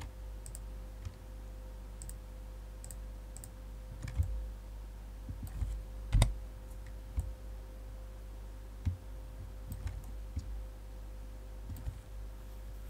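Irregular clicks of a computer mouse and keyboard, about a dozen, the loudest about six seconds in, over a steady low hum.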